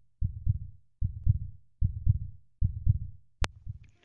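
Heartbeat sound effect: low double thumps, about four pairs roughly 0.8 s apart, the last pair fainter, followed by a single sharp click near the end.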